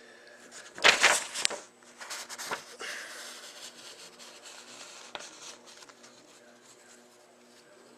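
Handling noise: a brief loud rustle about a second in, then fainter rubbing and scattered clicks over a faint steady hum.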